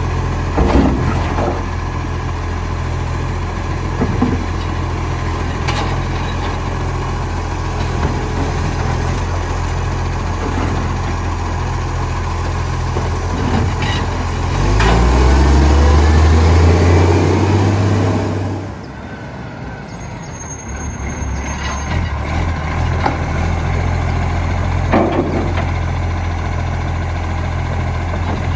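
Recycling garbage truck's diesel engine running with an exhaust leak. About halfway through it revs up, louder for a few seconds, then drops back sharply before settling to a steady run again.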